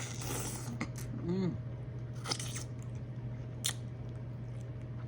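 Close-miked eating sounds: wet chewing and smacking with a few sharp lip-smack clicks, over a steady low hum.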